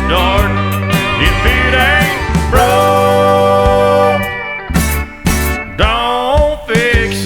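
Country song in an instrumental passage: a sliding lead melody over bass and drums, with a brief break in the backing about five seconds in.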